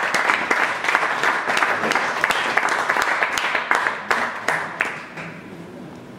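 An audience applauding a rider's introduction: dense clapping that thins out and dies away about five seconds in.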